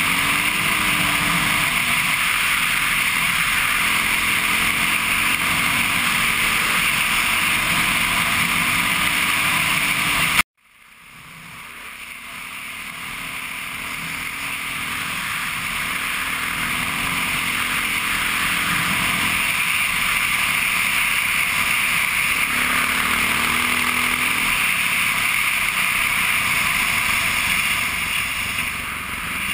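Honda XR650R's single-cylinder four-stroke engine running on the move along a gravel road, its pitch rising and falling with the throttle, under heavy wind rush on the camera microphone. The sound cuts out suddenly about ten seconds in and fades back up over a few seconds.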